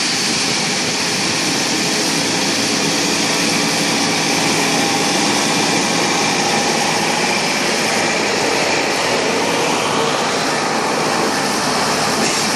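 Deutz-Fahr 6095 HTS combine harvester running steadily at working speed while its unloading auger pours shelled maize into a trailer.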